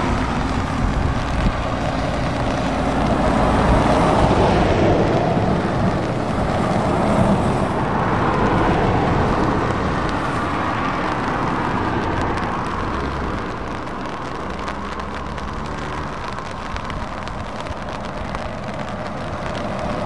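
Passing road traffic: DAF XF lorries and a van going by on a wet road, with diesel engine noise and tyre hiss. The sound dips in the middle and builds again near the end as another DAF XF tractor unit approaches.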